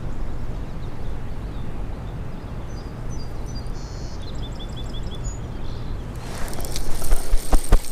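Steady low outdoor rumble of river water and wind, with a short run of five quick high bird chirps midway. Near the end come a flurry of sharp clicks and rustling.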